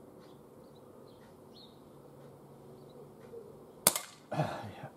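A single shot from an ASG Schofield 6-inch CO2 pellet revolver about four seconds in: one sharp crack, followed by a brief rougher noise. Faint birdsong before the shot.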